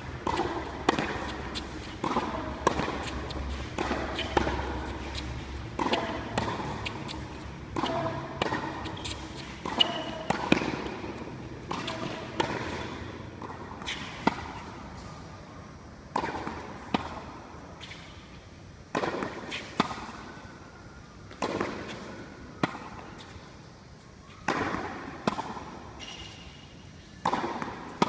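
Tennis balls struck by rackets and bouncing on a hard court: a sharp pop every second or two, each with a short echo under the covered roof.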